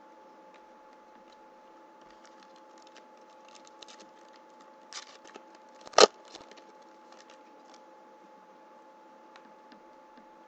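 Hockey trading cards shuffled and flicked through by hand: faint scattered scratches and ticks of card on card, with a sharp snap about six seconds in, over a steady electrical hum.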